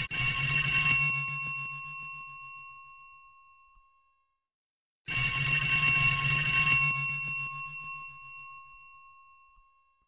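Bell sound effect ringing twice, about five seconds apart: each time a second of rapid ringing that then dies away over two or three seconds.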